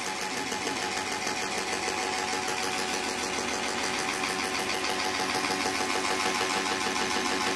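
A steady, fast, machine-like rattling pulse with a held tone running through it, growing slightly louder in the second half.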